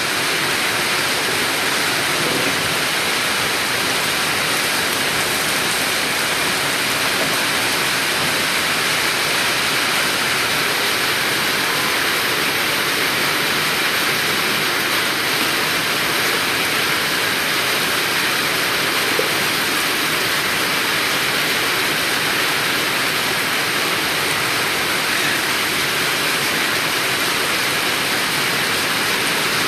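Heavy rain falling steadily: a loud, even hiss of water.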